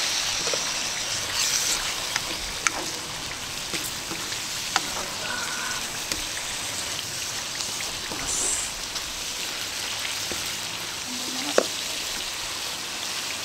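Pineapple sambal sizzling steadily in a wok as the thick sauce cooks down to doneness, with a few sharp clicks of the wooden spatula against the pan as it is stirred.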